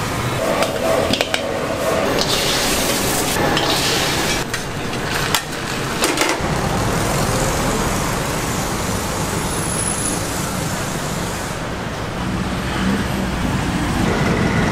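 Stir-frying in a wok: sizzling with clanks and scrapes of the metal ladle against the pan. About six seconds in, this gives way to steady street traffic noise with a low rumble.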